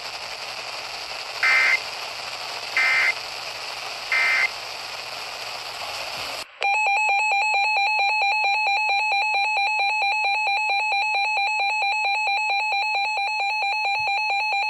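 Radio hiss broken by three short, shrill data-tone bursts about a second and a half apart: the Emergency Alert System end-of-message code closing a severe thunderstorm warning. About six seconds in, a loud, steady Emergency Alert System attention tone with a fast pulsing buzz begins, heralding a flash flood warning.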